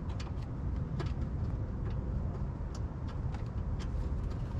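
A few faint, sharp metal clicks from tools and fasteners being handled, spaced irregularly over a steady low rumble.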